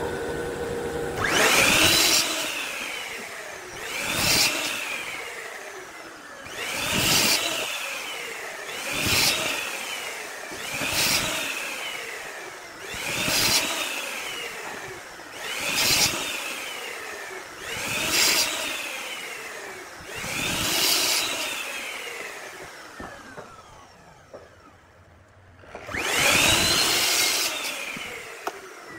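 Repeated long swishing strokes of a woodworking tool working a piece of wood, about one every two seconds. Each stroke swells and fades with a rising-then-falling sweep. After a string of ten strokes there is a short pause, then one more.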